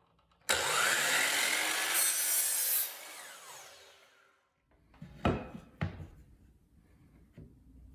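DeWalt miter saw starting up and crosscutting a 1x4 wooden trim board for about two seconds, then the blade spinning down. A couple of seconds later there are two sharp knocks about half a second apart.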